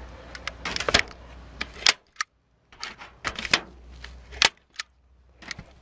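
A hand-squeezed staple gun firing staples to fasten wire mesh over an attic vent: several sharp clacks, a second or so apart.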